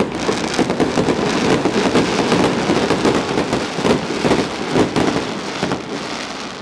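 Aerial fireworks bursting in quick succession, many sharp bangs and crackles running together into a dense crackle, easing off near the end.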